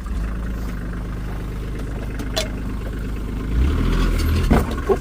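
Skid steer engine running steadily, then working harder with a louder, deeper note from about three and a half seconds in, with a few short clanks or squeaks near the end.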